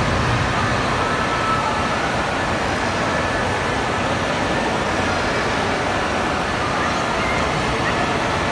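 Wave pool water washing and splashing, a steady, even din, with faint shouts and chatter from many swimmers mixed in.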